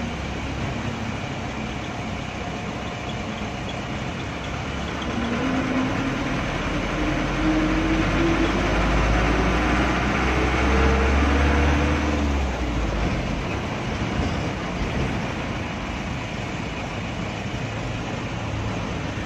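A 1996 Mitsubishi 120 PS medium bus's diesel engine, heard from inside the cabin, pulling away. Its note climbs steadily for several seconds and is loudest around ten to twelve seconds in, then drops suddenly and settles into a steady low rumble as the bus cruises.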